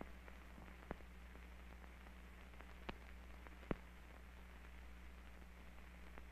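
Near silence: the steady hiss and low hum of an early optical film soundtrack, broken by three short sharp clicks about one, three and nearly four seconds in.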